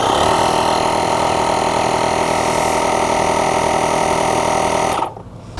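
DeWalt portable air compressor-inflator running steadily with an even motor hum as it pumps air into a basketball, which is being taken toward about 70 psi. It shuts off abruptly about five seconds in.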